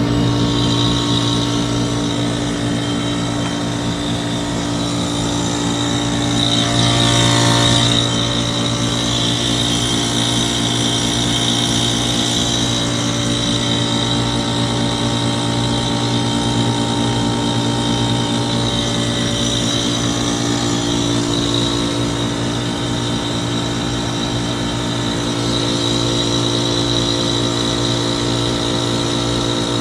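2006 Trane XB13 5-ton heat pump with a bad capacitor running through a defrost cycle: a steady, loud electrical hum with a high whine over it. A brief rush of noise comes about seven seconds in.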